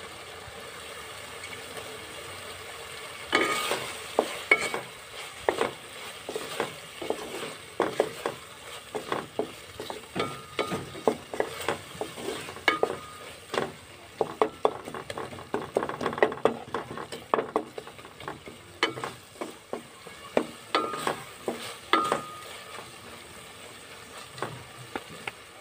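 Tomato chutney sizzling in an aluminium pot. From about three seconds in, a wooden spatula stirs and mashes it, with frequent sharp knocks and scrapes against the pot, some ringing briefly.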